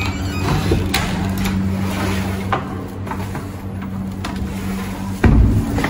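A hotel room door being opened and walked through: clicks and knocks from the handle and latch, with a heavy thump about five seconds in, over a steady low hum.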